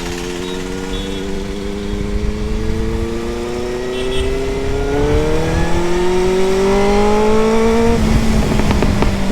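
Motorcycle engine accelerating hard, its note rising steadily for about eight seconds. It then comes off the throttle, and the exhaust crackles and pops, which the rider calls 'firecrackers' in second gear.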